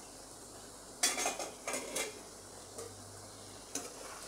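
Metal slotted spatula stirring and scraping partly cooked potato cubes in a nonstick pan over a faint sizzle: a cluster of clinks and scrapes about a second in, then a couple of single taps.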